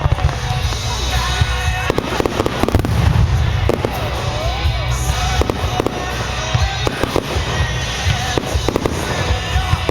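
Fireworks display in full swing: a dense run of shell bursts, booming low and crackling sharply, with high gliding whistles among them.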